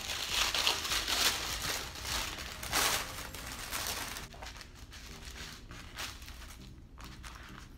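Wrapping paper crinkling as it is unfolded and pulled away from a small box, loudest in the first four seconds, then softer rustling.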